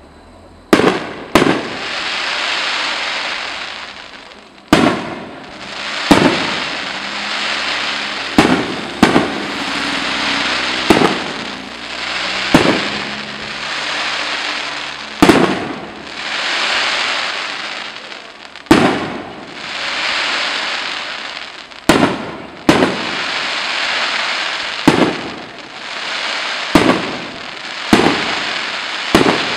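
Aerial firework shells bursting in a steady run, about twenty sharp bangs one to three seconds apart, each followed by a long crackling hiss as the glittering gold stars burn out.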